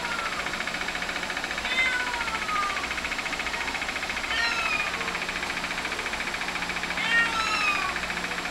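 Six-week-old kittens mewing: a few short, high mews that fall in pitch, coming every two to three seconds, over a steady buzzing background hum.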